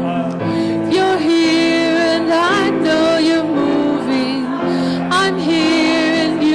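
Worship song played by a band, with a woman's voice singing a wavering melody over steady held chords.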